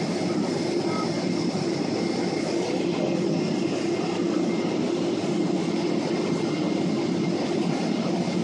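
Steady cabin noise inside a Boeing 777-300ER rolling along the ground: a constant low rumble and hiss from its GE90 engines and wheels, with a faint steady whine above it.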